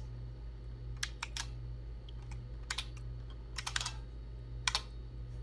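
Computer keyboard keys clicking as short DOS commands are typed: scattered single keystrokes in small groups, with a quick run of several about three and a half seconds in and a last one near the end.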